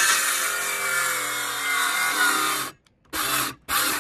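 Power drill driving a screw into wood, running for about three seconds with its pitch sagging under load, then two short bursts of the trigger.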